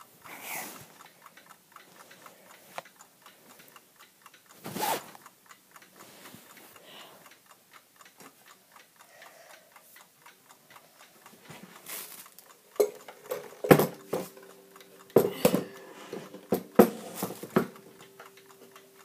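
1929 Waterbury pendulum clock ticking steadily. In the last several seconds come a run of louder knocks as the clock is handled, each leaving a lingering ringing tone.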